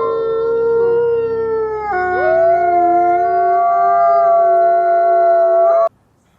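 Several canines howling together in a chorus: long, overlapping held howls at different pitches, sliding down in pitch about two seconds in, then cutting off suddenly near the end.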